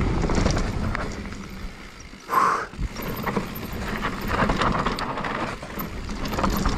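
Mountain bike riding over a rough dirt trail: tyres rolling and the bike rattling, with a short louder noise a little over two seconds in.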